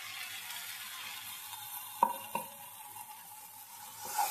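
Masala paste sizzling in oil in a kadai, a steady hiss. There are two light knocks of a utensil against the pan about two seconds in.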